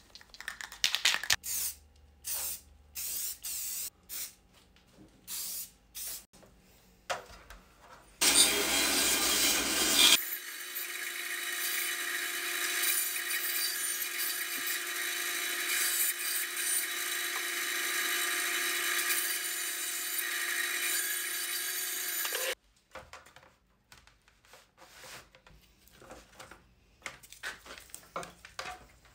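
A bandsaw running and cutting through a chunk of punky, rotten wood for about fourteen seconds, loudest as the cut begins, then steady until it cuts off suddenly. Before it come a few short bursts of noise, and after it light knocks as pieces of wood are handled and set into a plastic tray.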